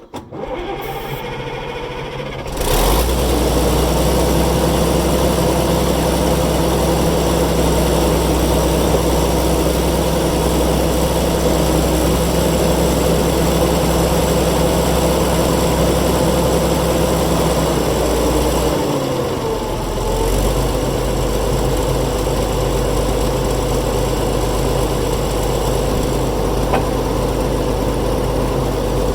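The Fiat Allis 11-B dozer's diesel engine running steadily at idle. It comes in at the start and gets louder about three seconds in, then drops briefly and picks up again about two-thirds of the way through.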